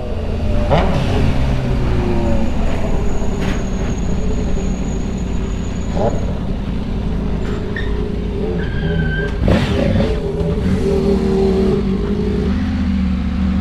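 The rider's own motorcycle engine running in low gear, slowing from a steady ride to a crawl, with wind and road noise over a steady low rumble.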